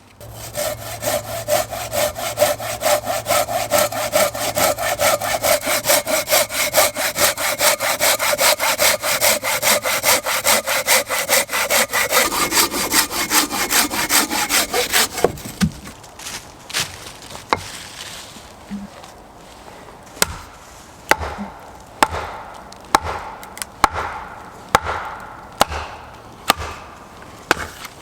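Hand saw cutting through wood with quick, even back-and-forth strokes; the sound changes near the end as the cut goes through, and it stops abruptly about halfway through. It is followed by single sharp knocks about once a second.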